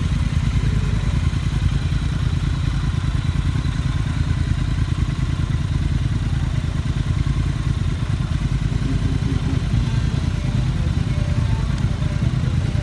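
Motorcycle engine running at a steady idle, its exhaust pulsing evenly with no revving.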